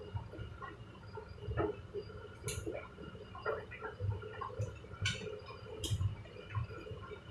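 Hoover and Candy washer-dryers running with their drums turning: a steady low hum with irregular soft knocks, and sharp clinks about two and a half, five and six seconds in.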